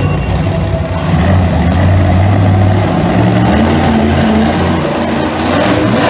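Bigfoot monster truck's engine running loud, getting louder about a second in and revving higher a few seconds in as the truck drives up onto a row of crushed cars.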